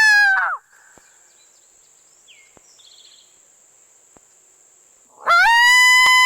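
Two long, loud coyote howls sounded on a predator call. The first holds steady and drops off about half a second in. After a few seconds of quiet with a faint bird chirp, the second rises sharply and holds.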